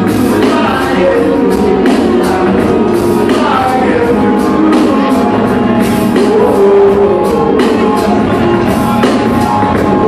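Live music played loud through a concert PA: a male vocalist singing over a steady drum beat, heard from within the crowd.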